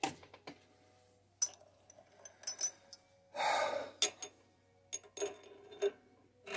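Steel parts being handled at a stopped lathe: a threaded shaft tapped and slid into a freshly bored part held in the chuck, giving scattered light metallic clicks and clinks with brief ringing, while the fit is tested and proves a loose slip fit. A short rushing hiss comes about three and a half seconds in.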